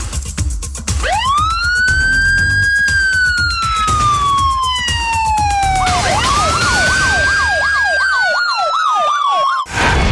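Police siren wailing: a long rise to a high pitch that slowly falls away, then a second rise with a fast yelping siren sweeping up and down over it, cut off suddenly near the end.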